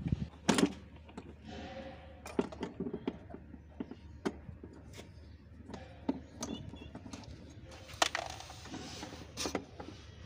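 Hand-tool handling on a kids' electric ride-on car: scattered clicks, knocks and short scrapes of a screwdriver and metal parts against the plastic body and wheel gearbox. A sharp click comes about half a second in, and a longer scrape around eight seconds in.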